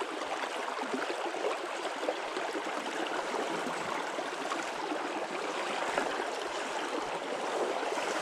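Shallow, stony burn running over a pebble and gravel bed: a steady water sound with no let-up.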